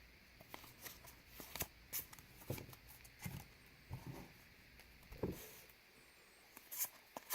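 Faint handling of trading cards: soft rustles and light clicks as cards are slid and flipped one after another, about one or two a second.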